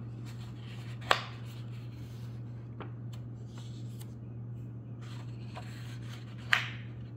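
A picture book's paper page being turned and handled: soft rustling with a sharp paper slap about a second in and another shortly before the end, over a steady low hum.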